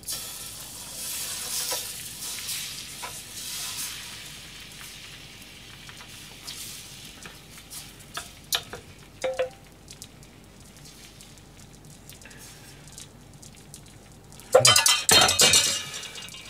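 Thin crepe-style okonomiyaki batter sizzling in a hot, oiled black frying pan as it is spread thin with the back of a metal ladle, with a few light clicks of the ladle against the pan. Near the end there is a loud clatter lasting about a second and a half.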